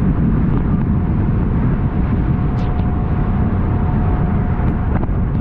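Buster Magnum aluminium motorboat under way through choppy waves in strong wind: a steady, loud low rumble of engine, water and wind on the microphone, with a faint steady whine joining about halfway.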